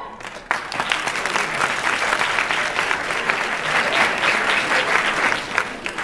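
An audience applauding, the clapping starting about half a second in and tapering off near the end.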